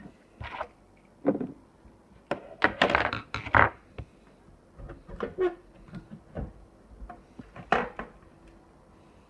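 Handling noise: a string of irregular knocks and thunks with some scraping, loudest and most crowded in the middle.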